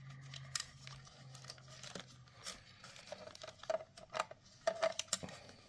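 Hands handling a vintage Darth Vader action figure's hard plastic body while pushing a zip tie through it: scattered small clicks, scratches and plastic rubbing.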